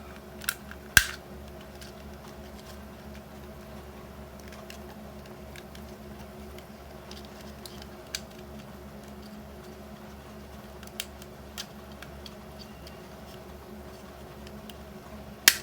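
Scattered sharp plastic clicks and snaps from a dashcam's plastic housing being pried and eased open, a few seconds apart. The loudest come about a second in and near the end, over a steady low background hum.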